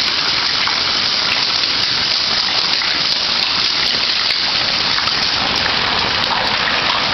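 Hailstones falling steadily and hitting the pavement and other objects, a dense patter of many small hits.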